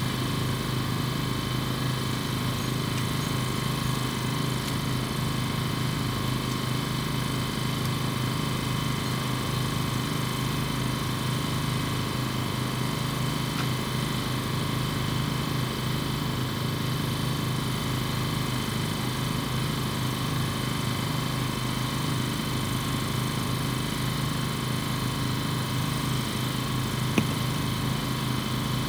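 Steady low mechanical drone, like an engine or generator running at an even pace without change, with one brief click near the end.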